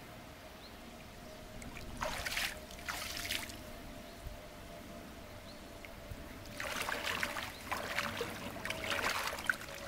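Lake water splashing and sloshing around a person's legs as he wades through knee-deep shallows in chest waders, in two bouts: a short one about two seconds in and a longer one from about seven seconds in.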